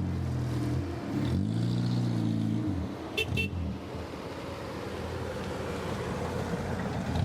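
Renault Super 5 car engine running and revving, rising in pitch and falling back within the first three seconds. Two quick horn toots come about three seconds in, followed by steadier engine and road noise.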